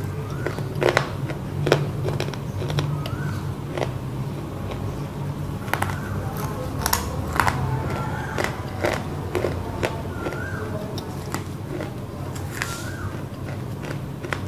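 Close-up chewing of roasted black clay (mitti) chunks, with sharp crunches scattered irregularly through and a steady low hum beneath. A short warbling chirp-like tone recurs every couple of seconds.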